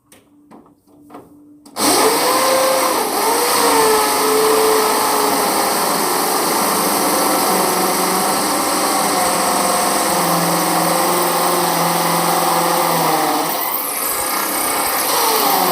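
Handheld power drill running under load for about fourteen seconds, starting about two seconds in. Its motor pitch wavers up and down as it bites.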